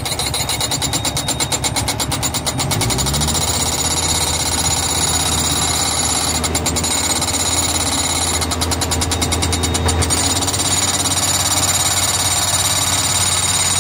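Engine-driven machine running with a rapid mechanical hammering. The engine revs up about three seconds in, and the hammering comes back in short spells later.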